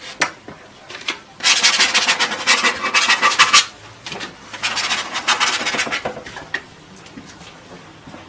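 Rasping, scrubbing strokes of a painting tool working oil paint on the palette. They come in two spells of rapid strokes, about two seconds long and then about a second and a half.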